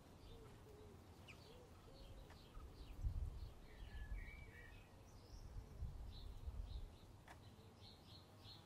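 Faint outdoor ambience: small birds chirping and twittering, with a low rumble that swells briefly about three seconds in and again about six seconds in.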